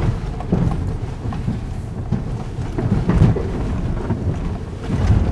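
Cabin noise inside a 2009 Subaru Forester climbing a steep, rocky dirt hill: a low, uneven rumble with scattered knocks and jolts as the body and suspension go over rocks and ruts. The heaviest knock comes about three seconds in.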